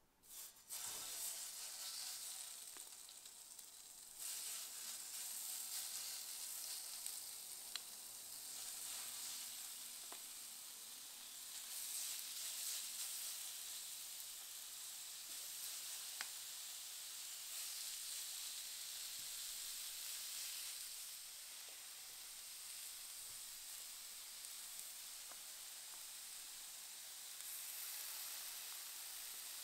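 Diced raw chicken and bacon-wrapped sausages sizzling as they are laid onto the hot ridged grill plate of a Silvercrest PD-8919 raclette grill. The sizzle starts suddenly about half a second in and rises and falls as more pieces go down, with a few faint clicks.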